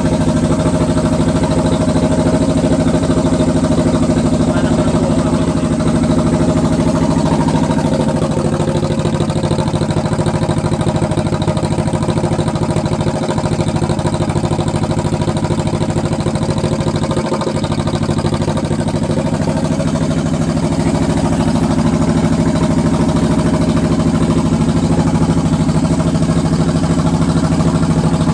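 Honda CB250 motorcycle engine idling steadily.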